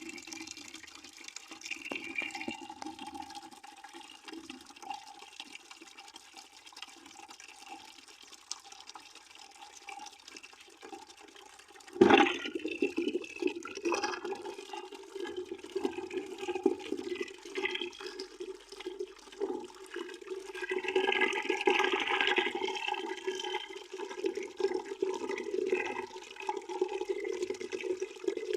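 Water pouring into a bucket, a steady splashing stream. About twelve seconds in it turns suddenly louder with a sharp splash, and it runs louder from then on.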